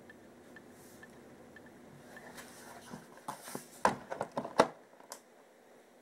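Paper rustling and short sharp handling knocks as a large spiral-bound notebook is lifted and its pages flipped open, starting about two seconds in and loudest around four to five seconds in.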